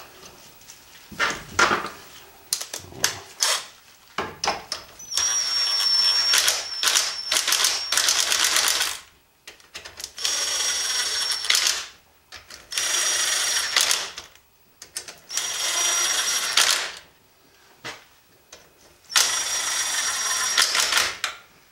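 A socket ratchet drives in the valve cover bolts on a Kohler single-cylinder engine. It runs in five bursts of rapid clicking with a thin high whine, one bolt after another. A few separate clicks and knocks come first, as the socket is set on.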